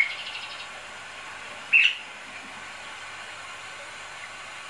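Bali myna giving two loud, short, sharp calls, one at the very start and another about two seconds in.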